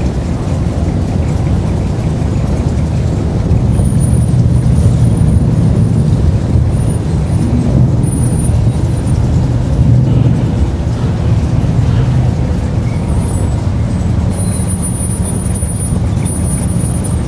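Steady low rumble of motor vehicles, engines and traffic, swelling a little in the middle.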